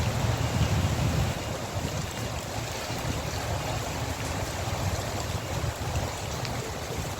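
Steady hiss of rain with wind rumbling on the microphone, the rumble heavier in the first second or so.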